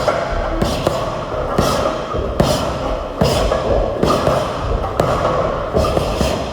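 Music with a steady heavy thudding beat, a hit a little more than once a second.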